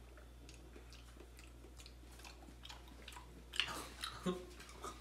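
Wet mouth clicks and lip smacks of someone tasting a sip of half-and-half, faint at first and louder and closer together near the end.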